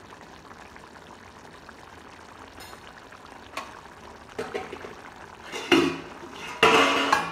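Chicken gravy simmering in a blackened wok, a faint steady bubbling hiss. In the last three seconds come several louder clattering knocks, the loudest near the end.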